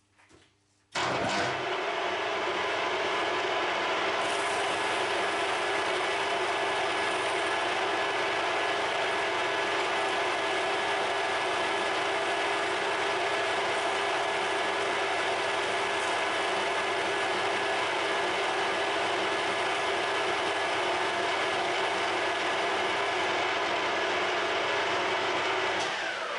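Harrison M300 gear-head lathe starting up about a second in and running steadily, with a whine of several steady tones while a brass tube spins in its chuck, then winding down near the end.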